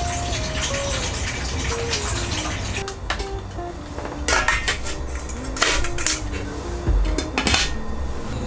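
Water poured from a plastic bottle into a stainless steel pot, then a few metallic clanks as a stainless steamer insert and its glass lid are set onto the pot. A simple background melody plays underneath.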